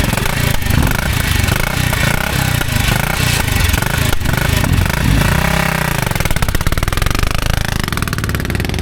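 CCM motorcycle engine running after a long bout of kick-starting, its fast firing beat rising and falling as the throttle is blipped several times.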